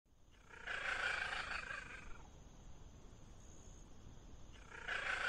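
A cat calling twice: a drawn-out call of about one and a half seconds, then a second one starting near the end.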